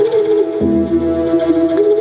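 Bansuri (Indian bamboo flute) playing a slow, wavering melodic line in raga Bhinna Shadja over steady drone tones, with a deep low note coming in about half a second in.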